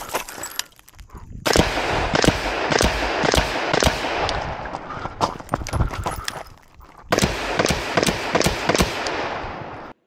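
Rifle shots from a Recce-style 5.56 mm semi-automatic rifle, fired in an irregular string of a few shots a second, each with an echoing tail. The firing cuts off suddenly near the end.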